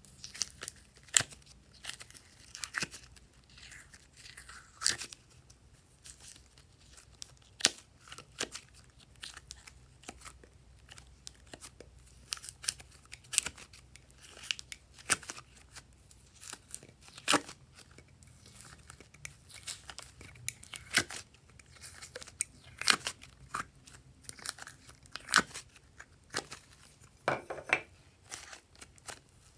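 Soft mint-green putty being pressed and peeled out of a plastic compartment mould and squeezed by hand: irregular sticky clicks, crackles and pops, with a short squeak near the end.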